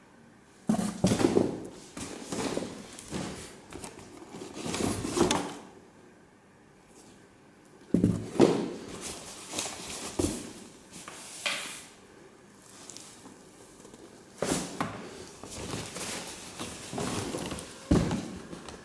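Used winter boots being handled in a cardboard box: rustling and dull knocks of leather uppers and rubber soles against each other and the cardboard, in three bouts with short lulls between.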